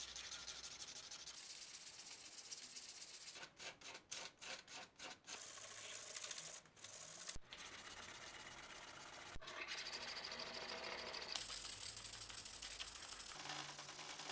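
Sandpaper rubbed by hand over an axe: steady back-and-forth scratching, broken by a run of short gaps a few seconds in.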